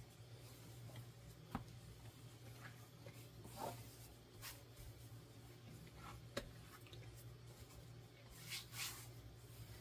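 Faint soft rubbing and squishing of hands kneading wet, shaggy sourdough on a silicone baking mat, pressing the dough forward and pulling it back, with a couple of light taps.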